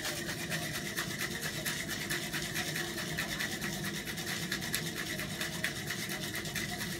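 Metal cocktail shaker being shaken hard, its contents rattling in a fast, steady rhythm that stops abruptly at the end.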